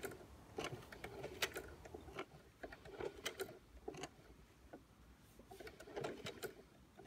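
Singer Heavy Duty 4432 sewing machine with a walking foot, turned slowly by hand through a crank on the handwheel to stitch leather: faint, irregular clicking and ticking of the needle and feed mechanism, with a short clatter about three seconds in and again near the end.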